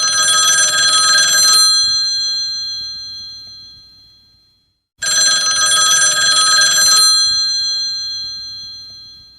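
Phone ringtone of an old-style telephone bell, ringing twice about five seconds apart: each ring lasts about two seconds and then fades away.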